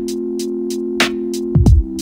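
Background electronic music: a held synth chord with hi-hat ticks about four times a second, and a deep kick drum coming back in near the end.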